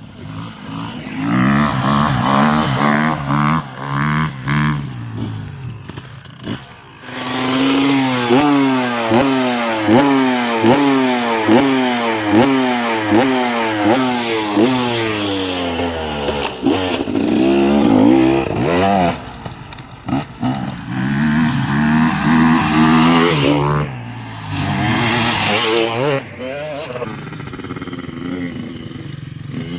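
Two-stroke dirt bike engine running and being revved hard. In the middle stretch the pitch climbs and falls back about once a second, then the engine runs more steadily and eases off near the end.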